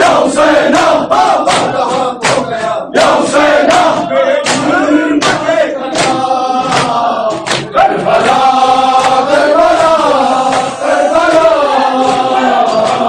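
A group of men chanting a noha (Shia lament) in unison with rhythmic matam, hands slapping their chests about twice a second through the first half; the second half is mostly the sung chant with fewer slaps.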